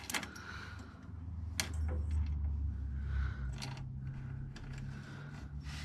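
Scattered sharp clicks and light scraping of hands working the starter cable and its fittings under a car's dashboard, over a low steady hum.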